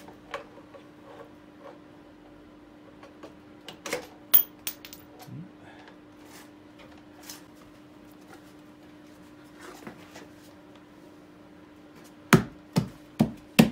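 Engine cover parts and hand tools handled on the bench: light clicks and taps, a sharper knock about four seconds in, then four quick loud knocks near the end. A faint steady hum runs underneath.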